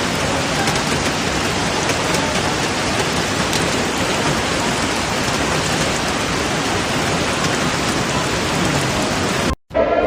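Heavy torrential rain pouring down and pattering on surfaces in a steady, even hiss, which cuts off suddenly near the end.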